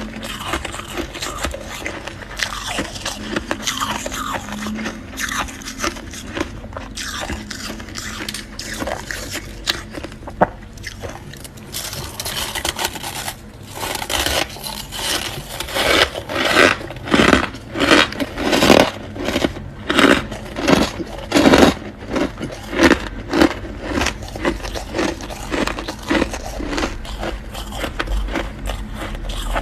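Freezer frost being scraped loose and eaten: rough scraping at first, then from about halfway through a run of loud, crisp crunches, one or two a second, as the frost is bitten and chewed, fading toward the end.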